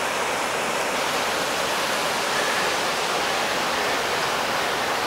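Large waterfall rushing steadily, a dense, even sound of falling water with no breaks.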